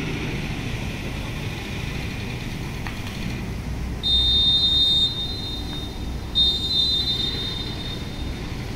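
A referee's whistle blown twice, loud and shrill: a blast of about a second, then after a short pause a longer blast that fades out. Under it runs a steady low rumble like distant traffic.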